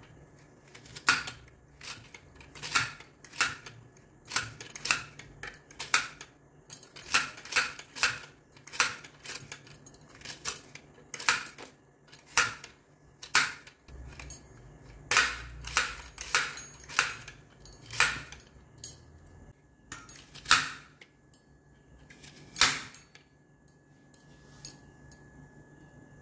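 Red plastic handheld vegetable chopper with a row of blades squeezed shut again and again on strips of gourd over a steel bowl, each cut a sharp crisp click. The clicks come irregularly, about one to two a second, with short pauses between runs.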